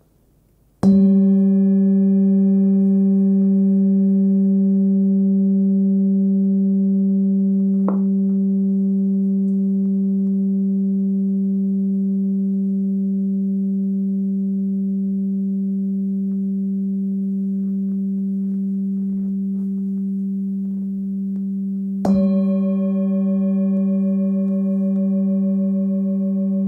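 A Nepalese singing bowl, 18.5 cm across, with its fundamental near 194 Hz (G), is struck about a second in and rings with a strong low note and several higher overtones, decaying slowly. A lighter tap comes about eight seconds in, and a second strike near the end sets it ringing loudly again.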